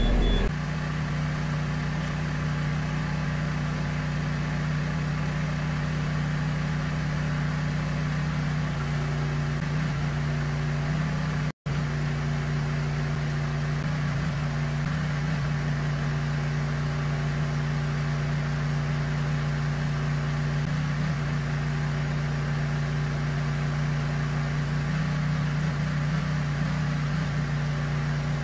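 Yanmar mini excavator's diesel engine idling with a steady, even low hum, cut off for an instant about 11 seconds in.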